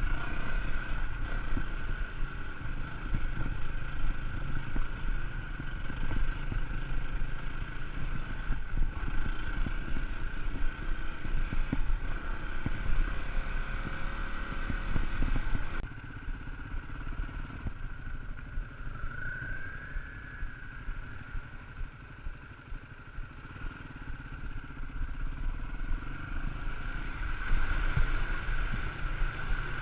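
Off-road motorcycle engine running steadily while riding. It drops in level about halfway through and picks up again near the end.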